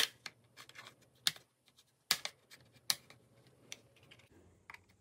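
Plastic snap-fit latches of a Seagate Portable external hard drive's enclosure clicking as the case is pried apart with a plastic pry tool. The clicks are sharp and irregularly spaced.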